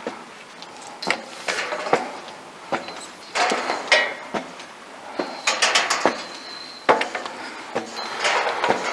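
Footsteps on a rough walking track, heard as irregular clusters of knocks and scuffs.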